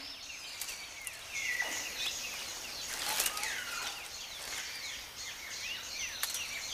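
Tropical forest ambience: many small birds chirping and calling in quick short notes over a steady background hiss.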